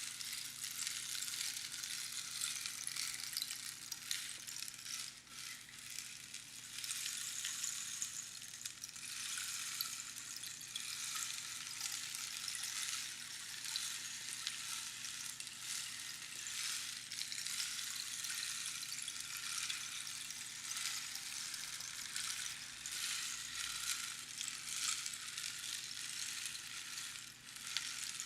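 Rainstick: small pebbles trickling down through the pins inside the hollow tube, making a continuous rain-like hiss of fine clicks that dips briefly about five seconds in and again near the end.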